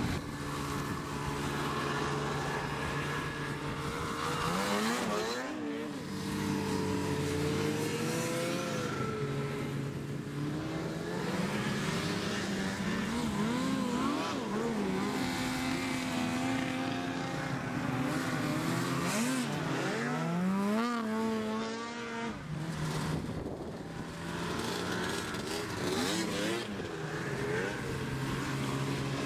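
A line of snowmobiles passing one after another, their engines revving up and falling away as each goes by, with several engines heard at once.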